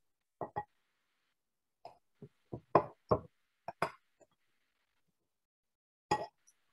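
A knife cutting open a peeled century egg: about ten short, irregular knocks and taps, with gaps of silence between them.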